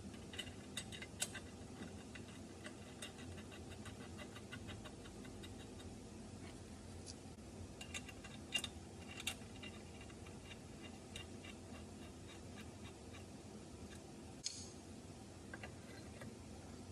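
Faint, rapid light metal ticking in two runs, with a few sharper clicks, from hand work with nuts and tools on truck suspension studs, over a steady low hum.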